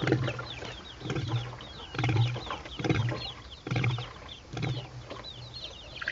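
Young chickens peeping: many short, high, falling chirps overlapping throughout. Dull low thumps or rustles recur about once a second and stand out above the peeping.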